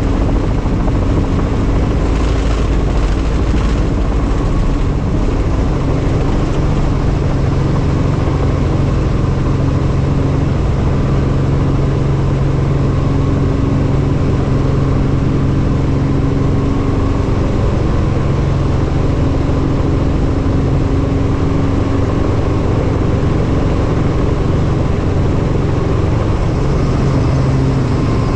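Helicopter running steadily: a constant loud engine and rotor drone with a steady low hum.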